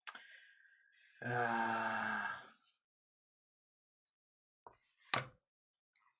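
A man's drawn-out groaning sigh, held on one low pitch for just over a second, then a sharp click a few seconds later.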